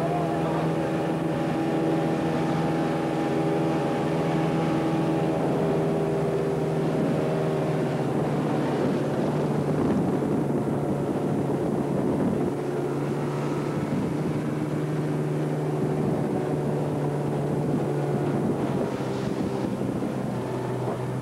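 Motorboat engine running steadily at speed, with wind buffeting the microphone and water rushing past the hull. The engine note steps down a little about halfway through.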